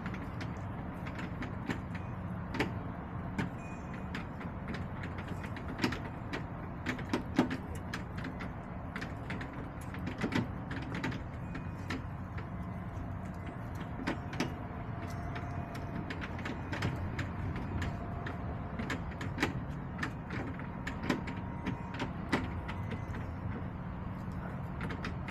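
Hens pecking and scratching, making scattered, irregular sharp taps and clicks over a steady low rumble.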